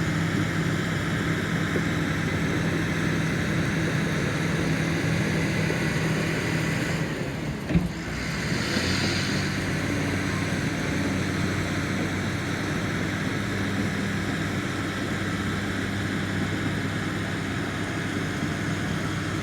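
Bulldozer's diesel engine running steadily, with a single sharp knock about eight seconds in, after which the engine note shifts slightly.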